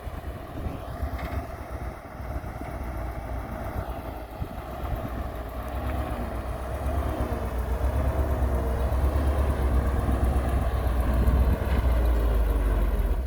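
Heavy construction machinery's diesel engine running with a steady low rumble, growing louder about halfway through as the machine works closer, then cutting off abruptly at the end.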